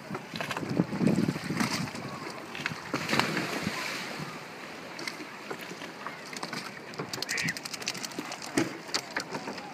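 Sea water lapping against the side of a wooden boat, with wind on the microphone and scattered small splashes and drips of water from a wet dog climbing aboard.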